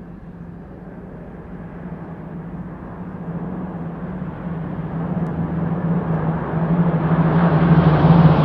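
Mixed formation of Red Arrows Hawk jets and Spitfire and Hurricane piston-engined fighters approaching: the steady drone of the piston engines blends with jet noise, growing steadily louder and brighter as the aircraft near.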